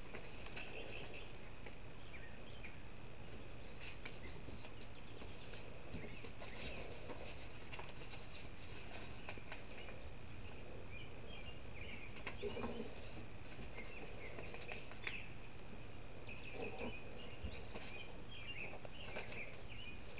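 A sheet of paper rustling and crinkling as it is folded and creased by hand into a paper airplane, in scattered soft crackles over a steady background hiss.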